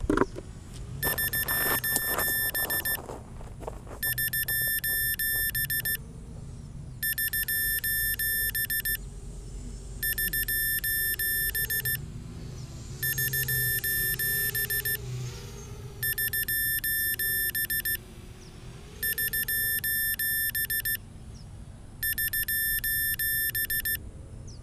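Electronic beeper sounding in repeated bursts, each about two seconds of rapid high beeps, pausing about a second between bursts. A faint hum wavers up and down in pitch underneath through the middle.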